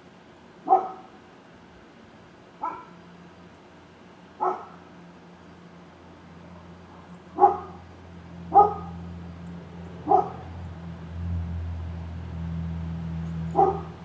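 A dog barking off in the neighbourhood: seven single, sharp barks at uneven intervals of one to three seconds. A low rumble builds underneath from about halfway through.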